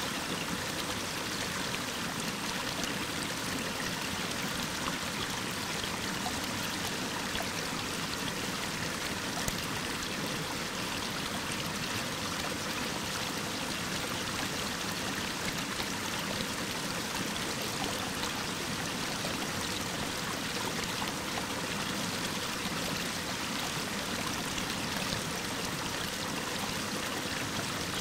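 Mountain waterfall cascading over rock: a steady, unbroken rush of falling water, heavy in hiss.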